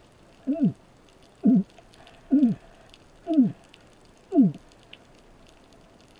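Five short descending underwater moans, about one a second, each sliding from a middle pitch down to a low one: a spearfisher's vocal calls made underwater, a lure call used to draw amberjack closer.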